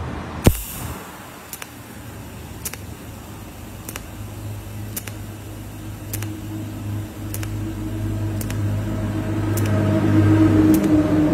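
TIG welding on a stainless steel exhaust tip: a sharp crack about half a second in, then a steady low electrical hum with a light tick about once a second. The hum swells louder toward the end.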